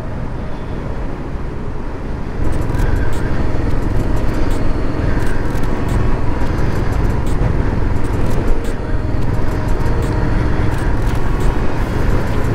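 Royal Enfield Himalayan's single-cylinder engine running while riding, with wind and road noise. It gets louder about two seconds in.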